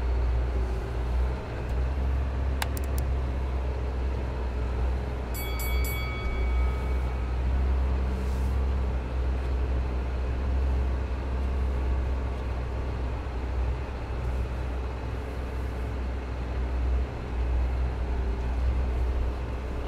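Isuzu NPS truck's diesel engine running steadily at low speed, heard from inside the cab as a constant low drone. There is a sharp click about three seconds in and a brief ringing metallic rattle about six seconds in.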